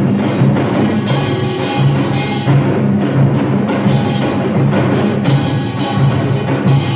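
Samulnori percussion ensemble playing loud and fast: the kkwaenggwari small gong and jing large gong clang and ring over the beating janggu and buk drums, in a dense driving rhythm.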